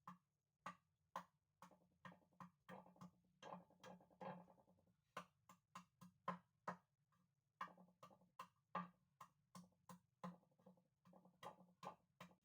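Repeated sharp knocks of food being prepared by hand on a kitchen surface, about two to three strikes a second, with short scraping sounds between some of them.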